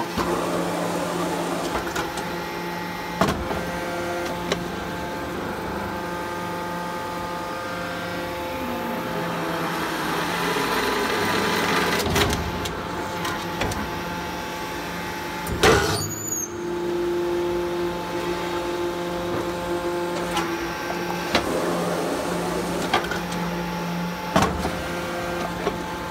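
Hydraulic salt block press running: a steady hum from its hydraulic pump and motor, with a handful of sharp clunks from the press, the loudest about halfway through.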